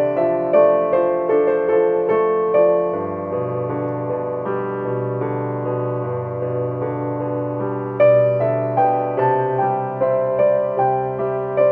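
Solo piano playing a slow, gentle melody over sustained chords. The playing softens in the middle and the notes strike more strongly again about two-thirds of the way through.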